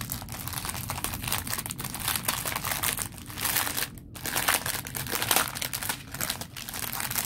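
Clear plastic packaging and the paper inside it crinkling and rustling as they are handled, with a short break about four seconds in.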